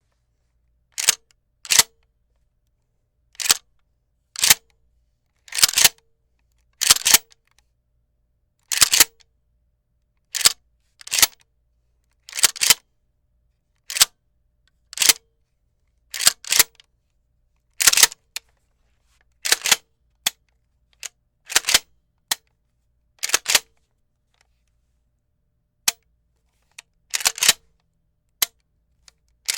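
Remington 870 pump-action shotgun being racked over and over, about a dozen times. Each stroke is a quick double metallic clack as the slide is pulled back and pushed forward.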